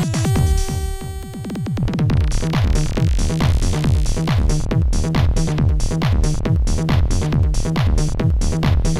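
Electronic trance-style music from an Amiga demo soundtrack. For the first two seconds it drops to a short break of held synth chord tones under a swelling rise, then a steady fast kick-drum beat with hi-hats comes back in and carries on.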